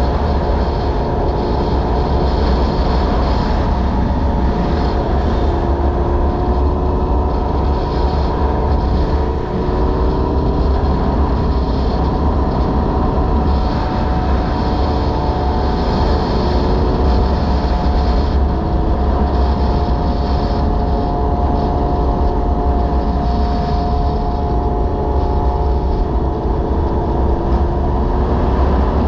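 Honda VFR800Fi sport bike's V4 engine running at cruising speed, its pitch drifting up and down with the throttle, under a heavy steady rumble of wind on the microphone.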